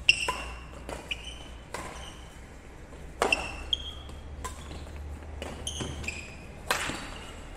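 Badminton rackets hitting the shuttlecock in a rally: a quick, uneven run of sharp hits, several with a brief ringing ping of the strings, the loudest near the start, in the middle and near the end, echoing in a large hall over a low steady hum.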